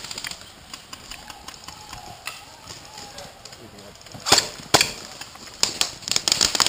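Airsoft gunfire: a quiet lull, then two sharp single cracks a bit past four seconds in, followed by a quicker run of cracks near the end.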